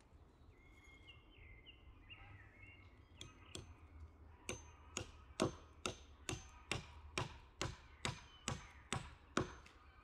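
A steady run of sharp knocks from a tool striking wood, about two and a half a second, starting a few seconds in.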